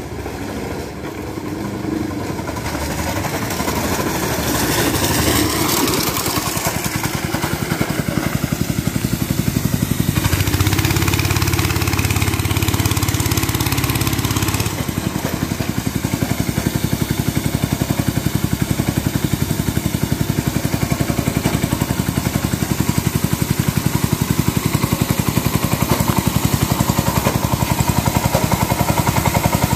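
Small engine of a homemade go-kart running as the kart drives up, growing louder and heaviest as it passes close about ten seconds in. From about halfway it settles into a steady, evenly pulsing idle.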